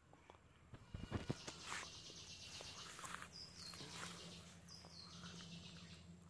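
Pond water swishing and sloshing around a person wading waist-deep, after a few soft thumps about a second in. A bird calls twice in the middle, each a short falling note.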